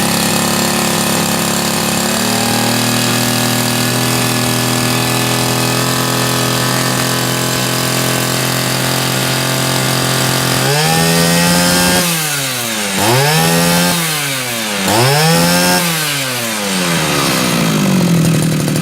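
Two-stroke brush cutter engine with a freshly adjusted carburetor, running steadily and stepping up in speed about two seconds in. From about eleven seconds it is revved up and let back down three times in quick succession, then settles. It picks up quickly on the throttle, a sign of a well-tuned carburetor.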